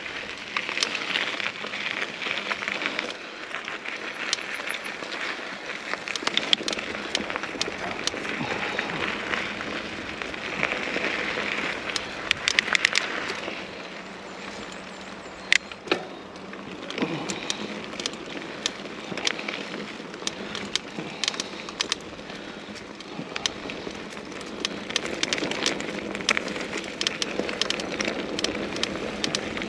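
Mountain bike being ridden along a trail: a steady crackling rush of tyres rolling over dirt and gravel, with many scattered clicks and rattles from the bike.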